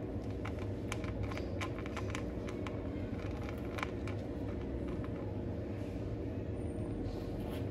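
A kitten eating dry cat kibble from a plastic bowl: irregular small crisp crunches and clicks, thickest in the first half and thinning out later, over a steady low background hum.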